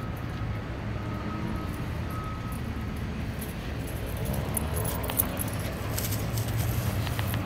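Construction machinery engine running in a steady low drone, with faint reversing beeps in the first few seconds. Light clicks and jingling come in over the second half.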